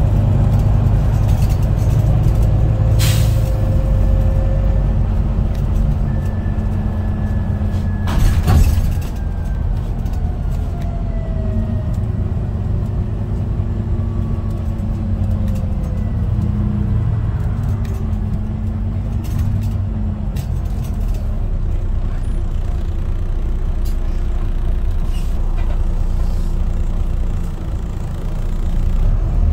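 Wright Gemini 2 double-decker bus heard from inside the passenger saloon while under way: a steady engine and road rumble with whines that fall in pitch as it slows. A sharp click comes about three seconds in and a short hiss of the air brakes about eight seconds in.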